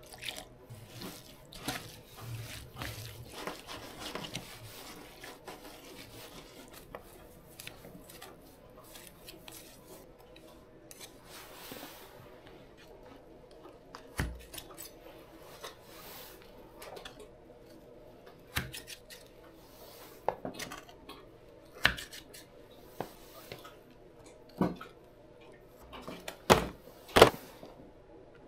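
Irregular light clinks and knocks of a soil blocker at work while soil blocks are made, with a few sharper, louder knocks in the second half.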